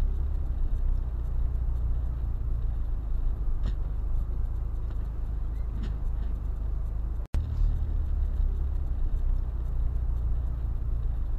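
Car interior noise picked up by a dashcam while driving at about 65 km/h on a wet road: a steady low rumble of engine and tyres, with a few faint ticks. The sound cuts out for a split second about seven seconds in.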